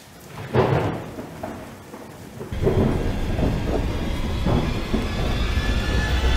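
Storm sound effects in a spooky intro: a sudden thunderclap about half a second in, then from about two and a half seconds a heavy low rumble of thunder and rain, with faint drawn-out tones of eerie music starting to build.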